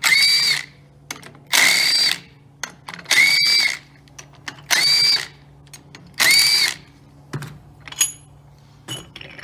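Cordless power driver run in five short bursts about a second and a half apart, each a brief whine, backing out the Allen bolts that hold the clutch removal tool's plate to the primary clutch. A few light clicks follow near the end.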